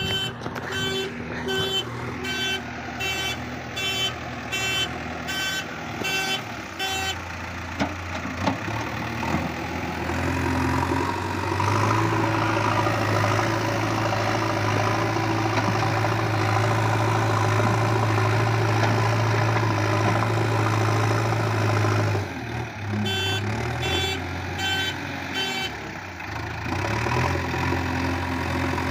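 JCB 3DX backhoe loader's diesel engine running, working harder and louder in the middle while it pushes earth with the loader bucket. Its reversing alarm beeps steadily, about two beeps a second, for the first several seconds and again for a few seconds near the end.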